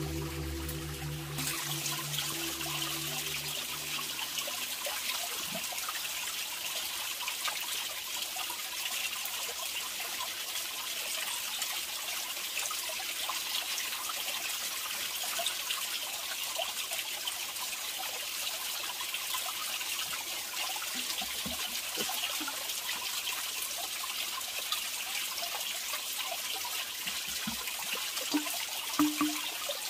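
Shallow forest stream trickling steadily over rocks, with the small splashes of rice being washed by hand; a few light knocks near the end.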